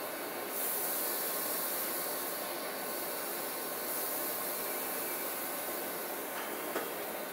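Steady hiss from an electric train standing at the platform, with one short click near the end.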